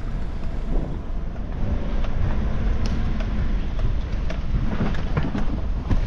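A vehicle driving along a rough dirt road: a steady low rumble with wind on the microphone. A few short sharp knocks and rattles come in the second half.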